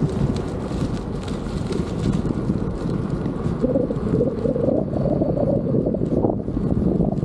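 Wind rushing over the microphone of a rider on a moving electric unicycle: a steady low rush that turns rougher and a little higher from about halfway through.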